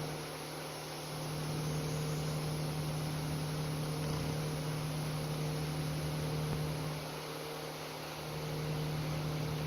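Steady low engine hum of an idling vehicle over an even hiss, swelling a little louder about a second in, easing off around seven seconds and rising again near the end.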